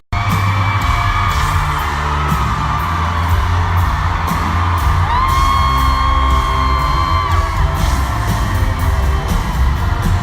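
Loud live pop-rock music with a heavy, boomy bass and a steady beat, under a crowd of fans whooping and yelling. About halfway through a long high note is held for a couple of seconds.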